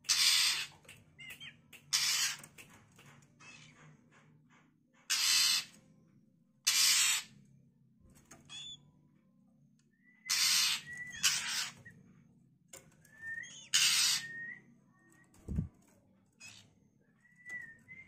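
Juvenile Oriental magpie-robin (kacer) in a cage giving about seven harsh, rasping calls of half a second each, mixed with short whistled notes in the second half. A single low thump comes near the end.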